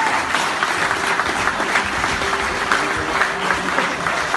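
Audience applauding steadily after a song.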